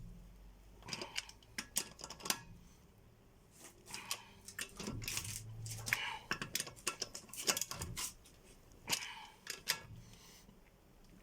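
Metal tools and parts clinking and clattering in clusters of sharp clicks and knocks, with short quieter gaps between them.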